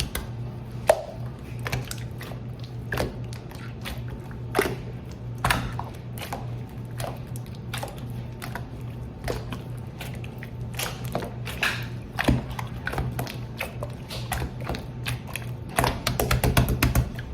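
Slime being squeezed and worked by hand, making irregular sticky clicks and pops over a low steady hum.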